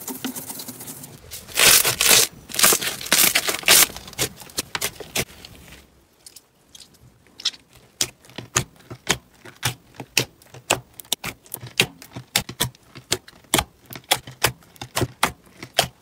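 A flat hand scraping and sweeping glitter and colour drops across a plastic tray, a few loud rough scrapes. Then fingers poking and pressing into thick slime in a plastic tub, making many short sharp pops and clicks, several a second.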